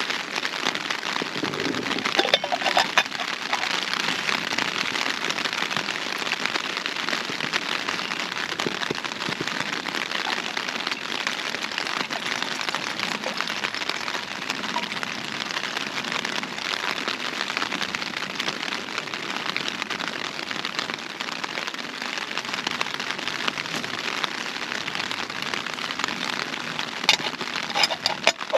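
Heavy rain drumming steadily on a Hilleberg Unna tent's fabric, heard from inside the tent as a dense, even patter. A few sharper knocks stand out about two seconds in and near the end.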